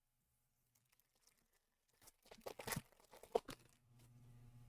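A Lorcana booster pack's foil wrapper being torn open and crinkled in a burst of crackles about two seconds in, followed by a faint low hum.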